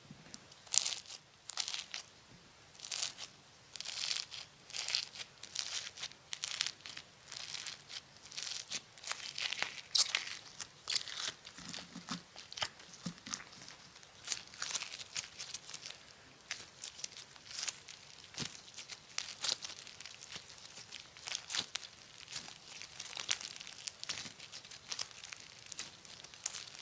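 Sticky yellow foam-ball slime (floam) being squished, folded and stretched in latex-gloved hands: many small, irregular crackles and pops from the foam beads, with sticky tearing as the strands pull apart. It is made slightly sticky so the foam balls stay in.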